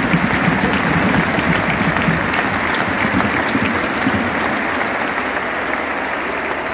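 Large stadium crowd applauding: dense, steady clapping that fades a little toward the end.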